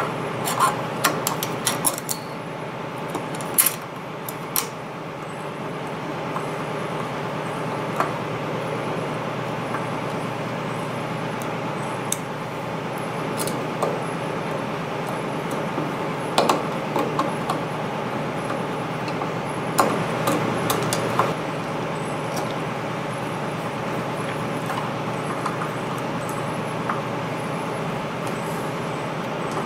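Scattered small metallic clicks and taps of screws and a Torx wrench as the bar is screwed back onto a Braillo magnet rack. They come in clusters, most in the first few seconds and again about two-thirds of the way through, over a steady mechanical hum.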